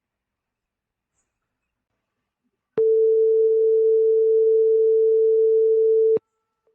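Simulated buzzer in PICSimLab sounding one loud, steady single-pitch tone for about three and a half seconds. It starts and stops abruptly about three seconds in, signalling that the microwave oven's 30-second cooking timer has run out.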